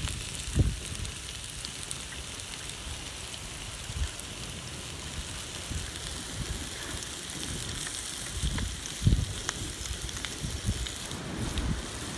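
Open wood fire crackling with scattered sharp pops, under a steady hiss of vegetables frying in a steel pan on the grill above it. A few short low thumps break in, one about halfway and two close together near the end.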